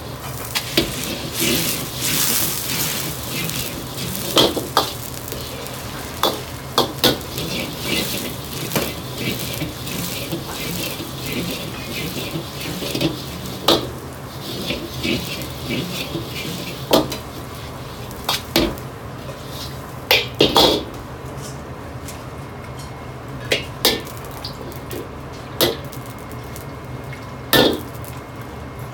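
A cake of egg noodles sizzling as it pan-fries in oil in a wok over a gas wok burner, with repeated sharp metal clanks of the wok and utensils knocking against the burner ring, over a steady low hum. The sizzling thins out in the last third.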